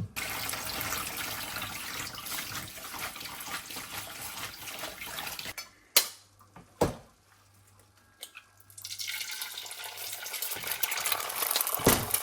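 Water running from a kitchen tap in two stretches, with two sharp clinks of dishes in the short pause between them.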